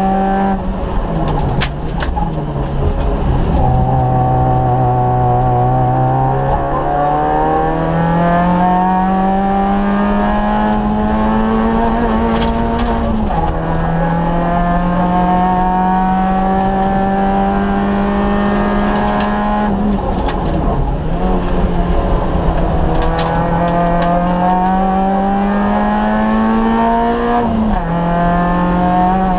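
Citroën Saxo VTS Group N2 rally car's engine heard from inside the cabin at full stage pace, its pitch climbing slowly through long pulls in gear and dropping sharply at upshifts, about 13 seconds in and again near the end. The revs sit lower early on, with a few short knocks and clicks from the car over the road.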